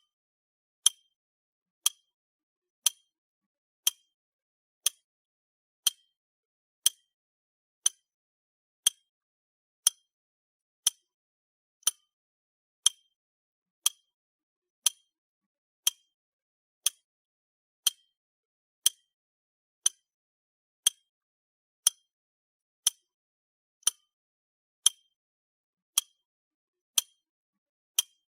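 Clock ticking, one sharp tick each second with a short bright ring and silence between ticks.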